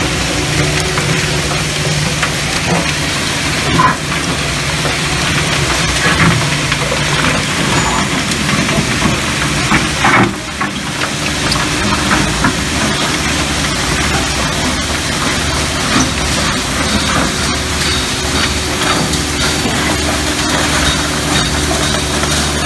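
Oyster shell processor running: a vibrating hopper shakes wet oyster shells down into a spiral auger that feeds a hammer mill. A steady mechanical din with a low hum and a noisy wash of shells, broken by a few sharper knocks.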